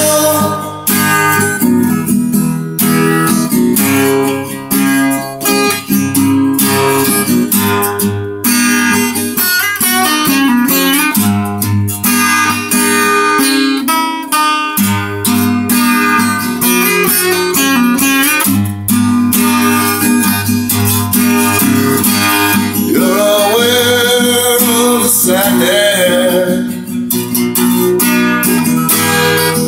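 Acoustic guitar strummed steadily in a dark folk song, with a man's voice singing in places, including a long wavering held note a little past the middle.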